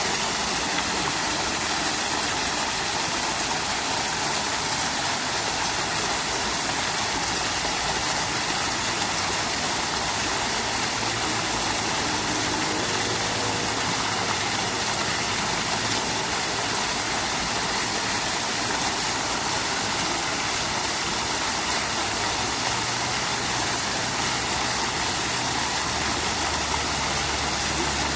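Water falling and trickling in a fountain, a steady, even splashing rush with no breaks.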